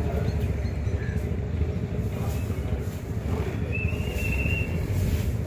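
A houseboat's engine running steadily, a low even rumble, with a brief high-pitched tone about four seconds in.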